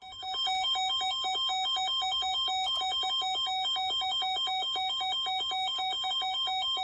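Emergency Alert System alert tone on FM radio: two pitches alternating rapidly, about five times a second, cutting off abruptly at the end. It heralds a broadcast severe thunderstorm warning.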